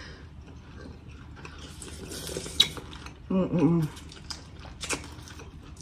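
Wet mouth sounds of eating sauce-soaked seafood boil: smacking and sucking, with a few sharp clicks and a brief hummed "mm" a little past three seconds in.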